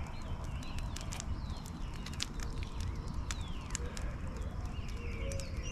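Birds chirping and calling with short, often falling notes, over a wood campfire crackling with scattered sharp pops.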